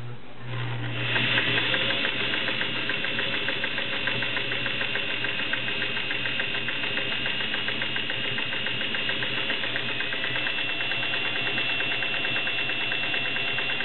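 Singer 401A Slant-O-Matic sewing machine stitching at a steady speed: motor whine with rapid, even needle strokes, picking up about a second in and stopping near the end. It is sewing a test seam after the bobbin tension was tightened slightly.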